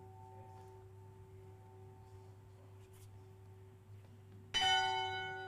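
A bell struck once about four and a half seconds in, ringing with several clear tones and slowly dying away. Before that, a fainter earlier ring fades out.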